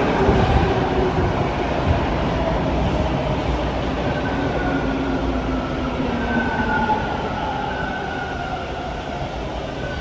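Bombardier T1 subway train running alongside the platform, its motors whining in several tones that slowly fall in pitch as the train slows, over a steady rumble of wheels on rail.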